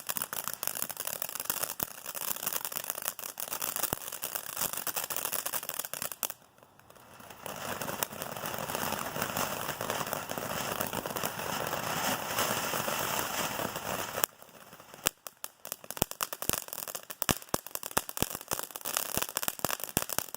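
Consumer firework cake's crackling stars going off, a thick continuous crackle that dips briefly about six seconds in and then resumes. From about fifteen seconds in it breaks up into separate sharp cracks and pops, as in the cake's crackling finale.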